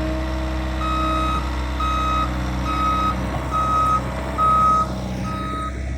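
Skid steer's backup alarm beeping about once a second while the machine reverses, over the steady low drone of its diesel engine.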